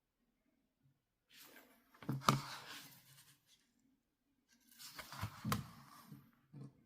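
A children's electronic sound book being handled: two bursts of rustling and scraping about three seconds apart, each with a sharp click.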